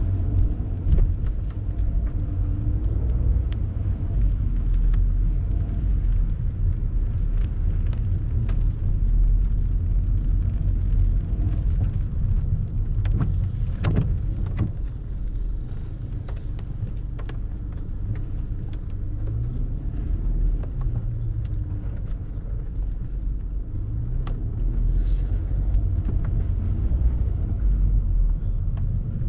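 City street ambience in the rain: a steady low rumble of passing traffic, with scattered sharp ticks and knocks.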